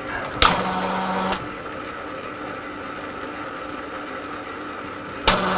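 Metal-turning lathe running in screw-cutting mode through a spring cut (a finishing pass at unchanged depth) on a brass thread. A steady machine hum with a higher tone over the first second or so, and a sharp click about half a second in and another near the end.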